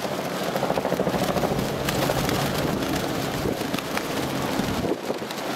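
A formation of military helicopters flying past, their rotors making a steady rapid chopping mixed with turbine noise.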